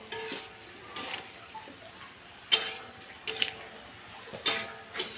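Metal spatula knocking and scraping against a metal wok while stir-frying genjer: several sharp clinks with a short metallic ring, the loudest about two and a half and four and a half seconds in.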